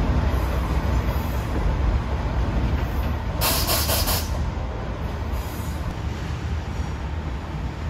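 KiHa 66 diesel railcars running at the platform: a steady low engine rumble, with a sharp burst of compressed-air hiss lasting about a second about three and a half seconds in.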